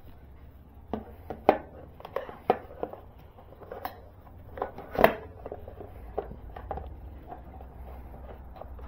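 Hard plastic side cover of a Honda Monkey 125 being handled and pressed into place against the bike: a run of irregular clicks and knocks, the loudest about one and a half and five seconds in, as its tabs are lined up.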